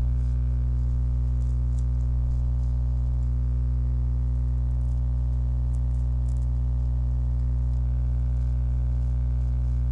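Steady electrical mains hum: a low buzz with many evenly spaced overtones.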